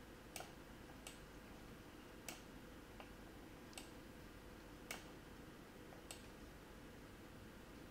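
Faint computer mouse clicks, about seven single clicks at uneven intervals, as areas of the image are clicked to add them to a selection.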